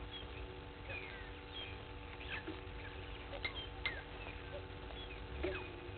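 Small birds chirping in the bush: many short, high chirps and quick falling whistled notes, scattered and irregular, over a faint steady hum.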